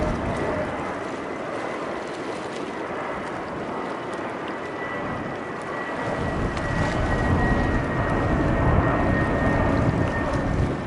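Airbus A320 jet engines heard from the ground as the airliner passes on approach, gear down: a steady rushing noise with a thin high whine that slides slightly lower. About six seconds in, a low rumble comes up and grows louder.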